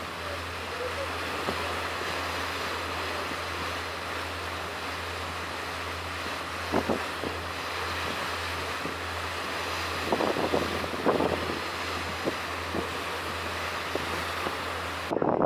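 Wind on the microphone over a steady hiss and a constant low hum, broken by a few short knocks about halfway through and again about two-thirds in. Just before the end the sound switches to heavier, gusty wind buffeting.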